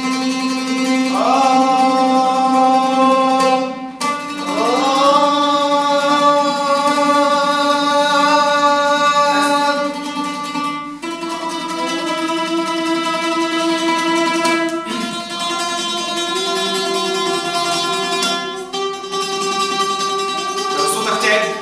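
A man sings long held notes on a vowel, several sliding up into pitch at the start, while plucking an oud to give each note: a vocal-range exercise that climbs the scale a step at a time.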